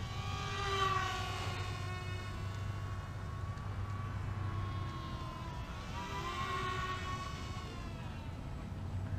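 Small electric RC foam model plane (a C-17 Globemaster III replica) whining in flight, its motor and propeller note sliding up and down in pitch. It swells twice, about a second in and again near the end, as the plane passes and the throttle changes.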